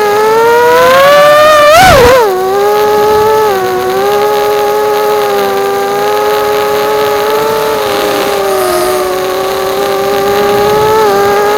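Motors of a Bee210 FPV quadcopter whining in flight. Their pitch climbs to a sharp peak about two seconds in, dips quickly, then holds nearly steady with small wavers as the throttle changes.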